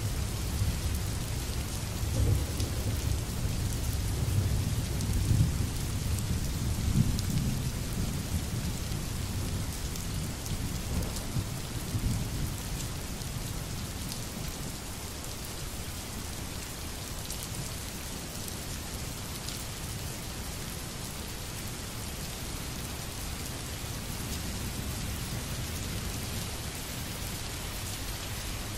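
Steady rain falling, with low rolling thunder that swells several times in the first half and then dies down to a faint rumble under the rain.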